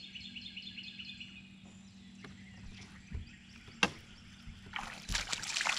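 A small bird sings a fast run of repeated high chirps for about the first second and a half, over a steady low hum. A single sharp click comes about four seconds in, then a short rushing hiss near the end.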